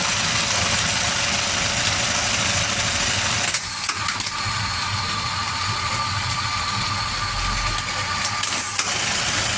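Zeba sewing machine running steadily under its motor, with a steady higher whine joining in for several seconds in the middle.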